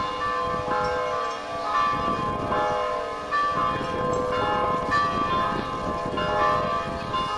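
Orthodox church bells ringing in a peal: several bells of different pitches are struck over and over, and their tones ring on and overlap.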